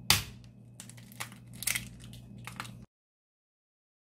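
Whole roasted eggs in their shells being set down into a clear plastic food container, knocking against the plastic about five times; the first knock is the loudest.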